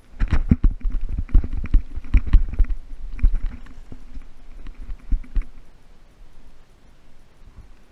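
Rapid knocking and clattering of fishing tackle against the kayak while a hooked bass is fought and reeled in, densest in the first three seconds and thinning out after that.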